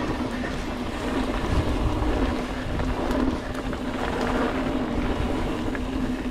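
Mountain bike rolling along a dirt singletrack: tyres on packed dirt and the bike rattling over the bumps, under heavy wind rumble on the microphone. A faint steady hum runs beneath, with a few light clicks.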